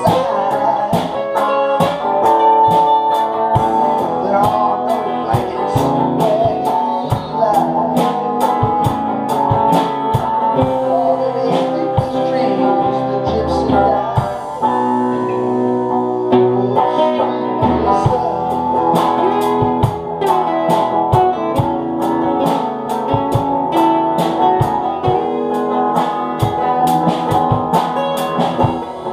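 A band playing a song: guitar over a steady drum beat, with held, changing notes throughout.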